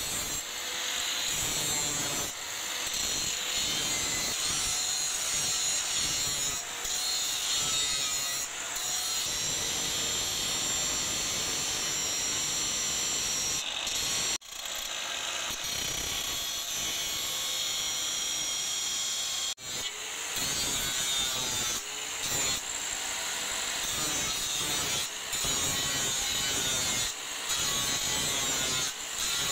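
Angle grinder with an abrasive disc grinding the steel of an old file, a steady high-pitched grinding rasp. It breaks off sharply twice, about 14 and 20 seconds in, then resumes.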